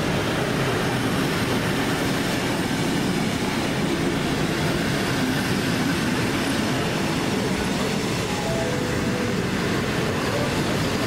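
Heritage passenger carriages rolling past close by, a steady rumble of steel wheels on the rails.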